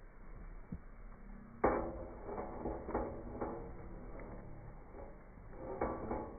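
Wood fire crackling in a fire pit, with a few sharp pops: the loudest comes about a second and a half in, and another comes at the very end.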